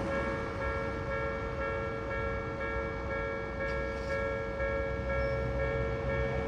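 Japanese railway level crossing warning alarm sounding, its several tones held steady and unbroken, over a low rumble.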